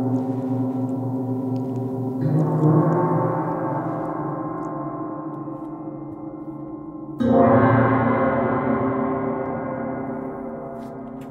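Metal percussion instrument with long prongs, struck twice, about two seconds in and more loudly about seven seconds in. Each strike rings on in a long, slowly fading metallic tone rich in overtones while the prongs keep vibrating.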